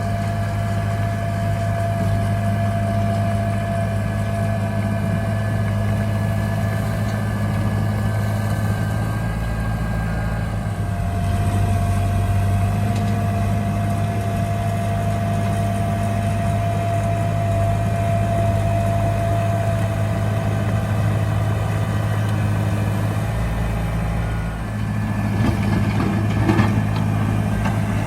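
A heavy earthmoving machine's diesel engine runs steadily, with a constant whine over the low engine hum. About three seconds before the end it gets louder, with rattling and knocks.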